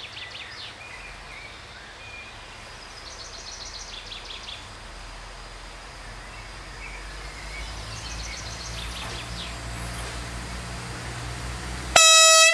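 Siemens Desiro diesel multiple unit approaching, its low rumble slowly growing louder while birds sing in short repeated phrases. About 12 seconds in, the train's horn sounds very loud as a single steady blast.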